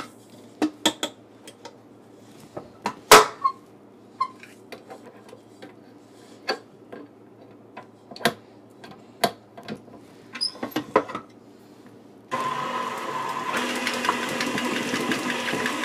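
Metal clicks and knocks as a stainless steel bowl and wire whisk are fitted onto a stand mixer, the loudest a sharp clank about three seconds in. About twelve seconds in, the stand mixer's motor switches on and runs steadily, whipping softened butter and cream cheese.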